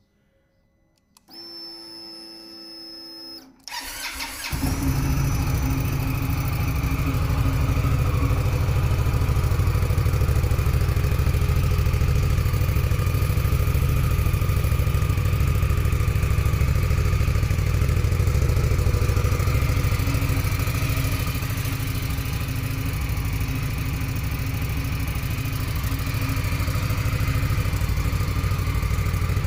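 Indian Scout Bobber's liquid-cooled V-twin on its stock Euro5 exhaust. A short electric whir comes first, then the starter cranks and the engine catches about four seconds in. It then idles steadily.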